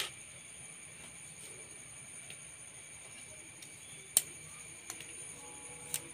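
A rubber band snaps once against a coconut-shell ring as it is stretched into place, a sharp click about four seconds in, with fainter handling clicks around it. A steady high whine runs behind it.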